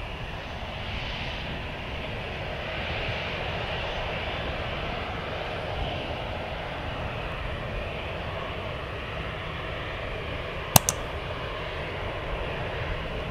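Distant jet airliner noise, a steady rushing sound with a low rumble, as an Airbus A320 comes in on approach to land. Near the end, one sharp click.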